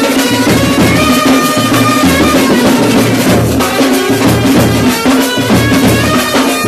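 A drum band playing: large bass drums and other drums beating a steady, fast rhythm, with a held tone and a melody line over it.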